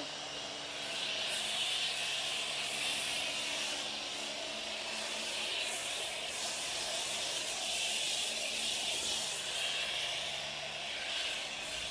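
Self-service car wash lance spraying thick active foam onto a car body: a steady hiss with a low steady hum beneath it.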